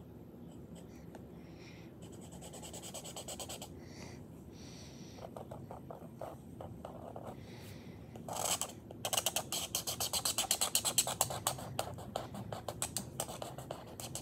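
Black marker tip scratching across sketchbook paper. A few separate strokes come first, then from about halfway in a fast run of short back-and-forth strokes as an area is filled in black.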